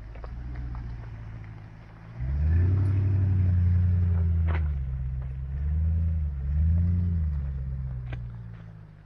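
Off-road 4x4's engine pulling at low speed on a dirt trail. It comes up on the throttle about two seconds in, then swells twice more around six and seven seconds before easing off. Scattered short clicks and knocks sound through it.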